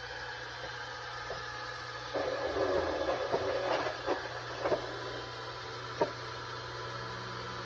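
Small wood lathe running steadily with its motor hum, with a louder rough rubbing from about two to five seconds in and a few sharp knocks as a wooden piece is worked on the spinning lathe.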